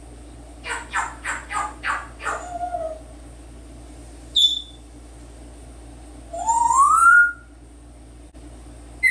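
African grey parrot vocalizing: a quick run of about six harsh calls, then a short high whistle, then a longer whistle that rises in pitch, and a short note at the end.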